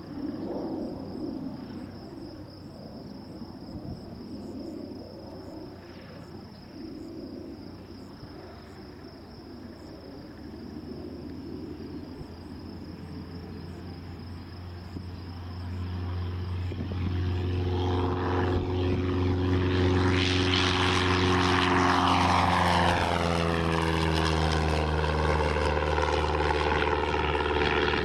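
Cessna 172's piston engine and propeller at takeoff power in a touch and go. It is faint at first, builds over a few seconds to a loud drone as the plane lifts off and passes, then drops in pitch as it climbs away.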